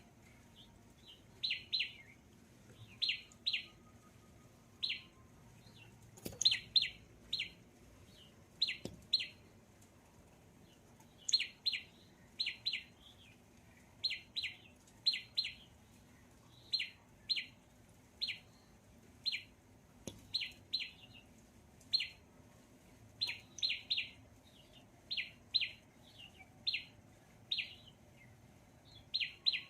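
A bird chirping repeatedly: short, sharp chirps, often in quick pairs, every second or two.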